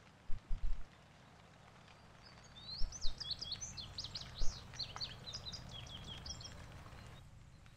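A songbird singing a rapid, varied phrase of high chirps and trills for about four seconds, starting a couple of seconds in. Underneath is a steady low rumble of wind on the microphone, with a few low thumps, the loudest near the start.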